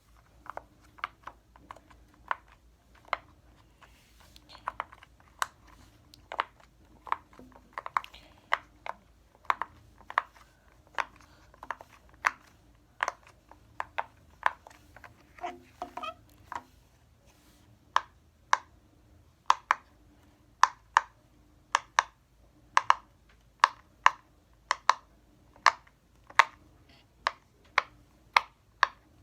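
Silicone pop-it fidget toy being pressed bubble by bubble, each bubble giving a short sharp pop, about one or two a second.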